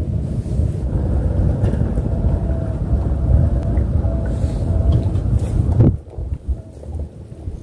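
Wind buffeting the microphone on a moving boat: a loud, uneven low rumble that drops away abruptly about six seconds in.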